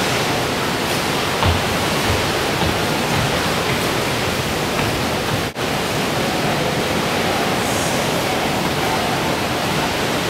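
Steady loud rushing hiss, like air or water noise, with a soft thump about a second and a half in and a momentary break about five and a half seconds in.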